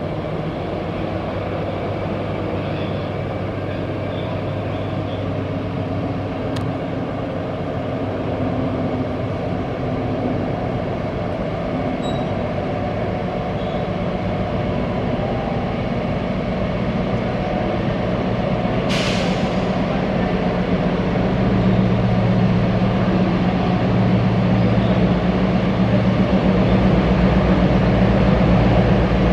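Diesel freight locomotive approaching at low speed, its engine drone growing louder as it nears. A short sharp hiss of air about two-thirds of the way through.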